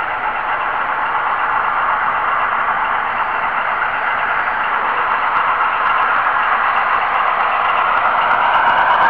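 Steady whirring hiss picked up on board a moving N-scale model train camera car running along the track, getting a little louder near the end.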